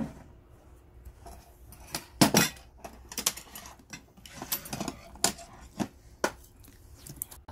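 Dishes and plastic food containers knocking and clinking as they are handled on a table: a string of separate sharp knocks, the loudest about two seconds in.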